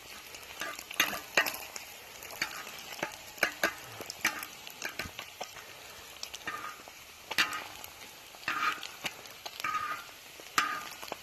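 Breakfast frying on a steel plow-disc cooker: a steady sizzle with irregular scrapes and clicks of stirring across the disc.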